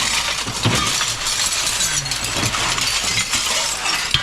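Window glass breaking and shattering, a continuous crashing clatter of many small impacts as panes are smashed out.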